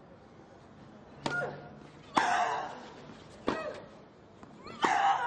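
Tennis rally: a racket strikes the ball four times, about a second and a half apart, and some strikes carry a player's short grunt.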